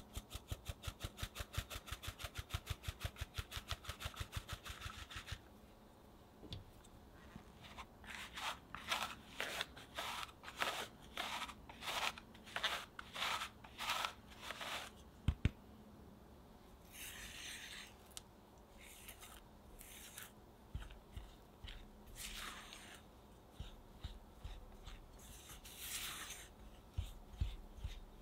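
A fine-mesh sieve being tapped quickly and evenly, about five taps a second, as flour is sifted into a glass bowl. This is followed by slower, louder shakes of the sieve. Later comes a spatula scraping and stirring flour into butter against the glass bowl.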